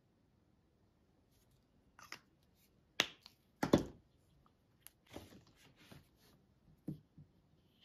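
Sharp knocks and clacks of craft tools set down and picked up on a hard tabletop, the two loudest about three and a half seconds in. Softer scuffs and taps follow as the glass cutting mat is turned and a squeeze bottle is handled.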